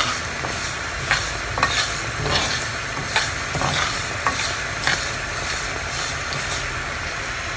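Split mung dal being toasted in a non-stick frying pan and stirred with a metal spoon: a steady dry rustling hiss, with the spoon scraping or tapping the pan about once a second.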